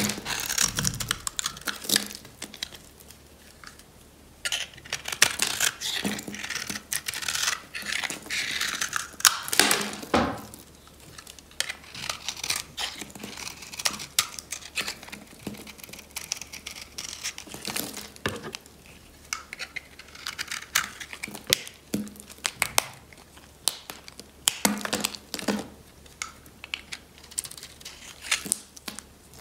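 Dry bar soap being shaved and cut with a utility-knife blade: irregular crisp crunching and scraping as flakes break away, densest in a stretch a few seconds in, then lighter, sparser crackles.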